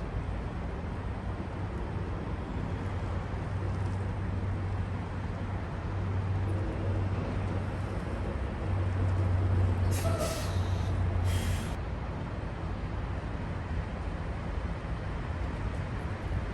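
Freightliner semi-truck's diesel engine running steadily with a low hum, with two short air-brake hisses about ten and eleven seconds in.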